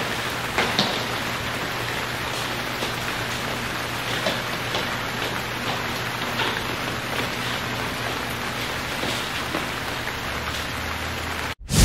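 Steady rain: an even hiss with scattered small ticks of drops, which cuts off abruptly near the end.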